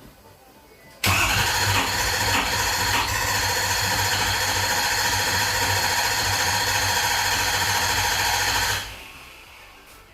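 Ford 6.7 Power Stroke V8 turbo-diesel starting and running after a fuel system repair (new CP4 pump, fuel rail and lines). It comes in suddenly about a second in, runs steadily and loud with a low drone, and drops away near the end.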